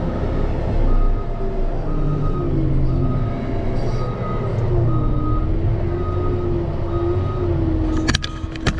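Diesel engine of a snow-plowing machine running, its pitch rising and falling, while its backup alarm beeps about once a second as it reverses. A few sharp knocks come near the end.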